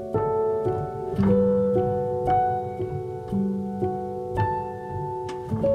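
Background music: piano with plucked strings, playing held notes over a steady pulse.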